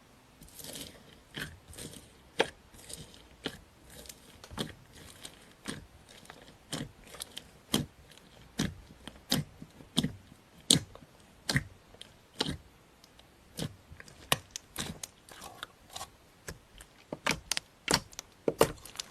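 Slime being squeezed and pressed by hand, giving a series of sharp pops and crunches, irregular at about one or two a second and coming faster near the end.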